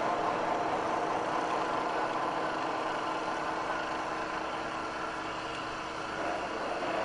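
ATV engine running steadily at low trail speed, picking up slightly in pitch near the end.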